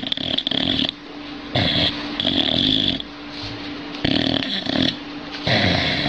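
Boxer dog snoring in its sleep: four loud snores, each about a second long, with quieter breaths between them.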